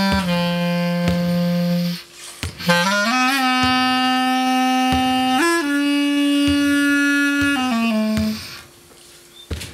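Clarinet playing slow, long-held low notes in an improvised line. It pauses briefly about two seconds in, then slides up in pitch into a higher held note. The phrase steps down and fades out over a second before the end, with a few soft knocks underneath.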